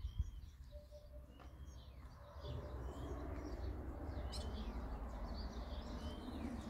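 Small birds chirping and twittering here and there. A steady low rumble comes in about two and a half seconds in.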